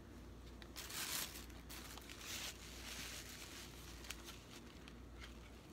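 Faint rustling and scraping from objects being handled, in a few short bursts about one, two and three seconds in, with scattered small clicks.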